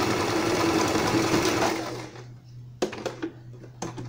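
Electric household sewing machine stitching through a stuffed fabric tail, running steadily and then stopping about two seconds in. A few light knocks follow as the piece is handled and pulled away from the machine.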